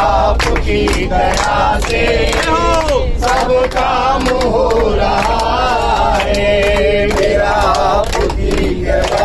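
A group of men and women singing a Hindu bhajan together in unison, with steady rhythmic hand-clapping keeping time.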